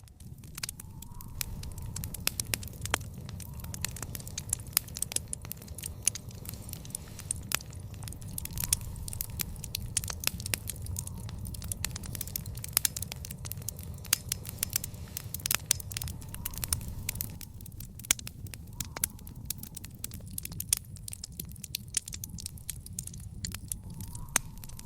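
Wood fire burning in a backyard fire pit, crackling and popping in dense, irregular snaps over a steady low rumble of flame.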